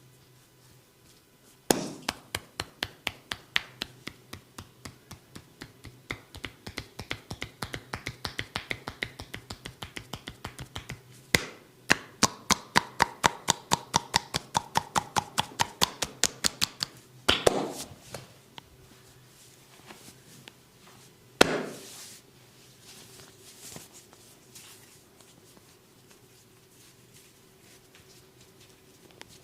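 Barber's hands striking the skin in a rapid, even run of sharp snaps, about four to five a second, during a percussive massage. Then two single loud cracks a few seconds apart, followed by only faint handling sounds.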